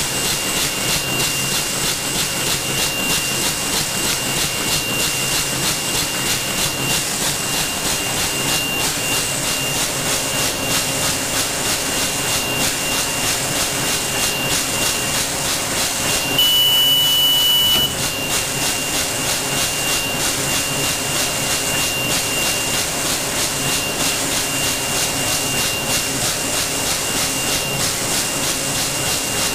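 Plastic bag-making machine with a rotary-arm wicketer running: a steady mechanical hiss with a constant high whine and a fast, regular beat. A little past halfway, a louder, higher tone cuts in for about a second and a half, then stops suddenly.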